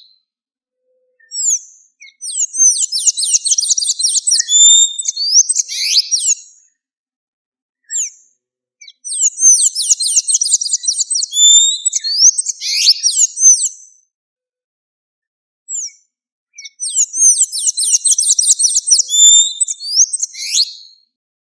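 Blue-gray tanager (sanhaço-da-amazônia) singing: three bouts of rapid, high, squeaky twittering notes, each a few seconds long, with short silent pauses between them.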